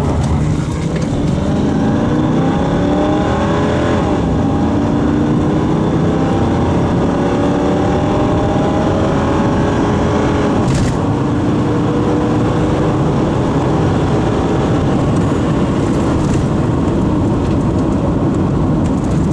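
1996 Mercury Cougar XR7's 4.6-litre SOHC V8 at full throttle, heard from inside the cabin, its pitch climbing through the gears. The four-speed automatic upshifts about four seconds in and again near eleven seconds, each shift dropping the pitch. After the second shift the engine settles into a nearly steady cruise under road noise.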